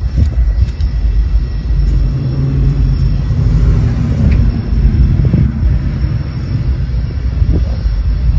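Loud, uneven low rumble, with a faint steady hum in the middle of it.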